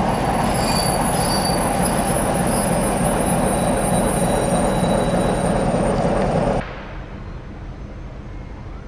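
Passenger railway coach rolling close by: a loud, even rumble of wheels on the rails with thin, steady high-pitched squealing tones above it. About six and a half seconds in it cuts off abruptly to much quieter rail-yard noise with a low steady hum.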